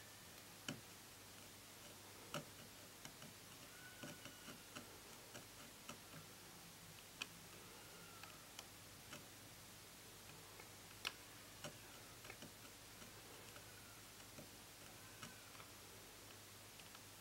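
Near silence with faint, irregular small clicks and taps from fine hand work with a tool on a TV panel's chip-on-film ribbon.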